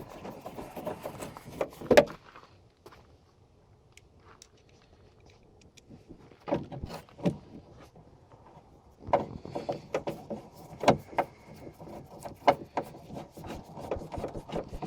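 Scattered clicks, taps and knocks of hands and a screwdriver working on a pickup's plastic interior door trim panel as it is fastened back on. There is a loud knock about two seconds in, then a quiet spell, then more bunches of clicking.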